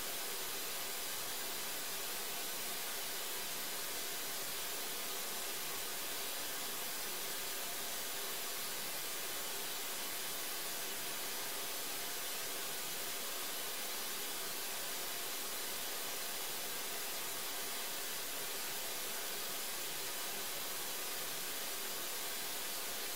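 Steady, even hiss like white noise or static, with a faint steady tone underneath and no speech or music.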